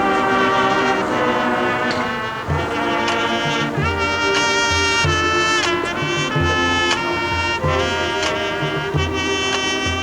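Marching band brass section playing loud held chords, the notes bending downward together several times, with a steady pattern of low beats coming in about two and a half seconds in.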